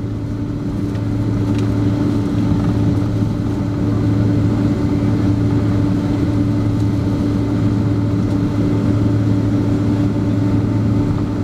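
Boeing 767-300 jet engines running with a steady drone and an even low hum. The level rises slightly in the first couple of seconds, then holds steady.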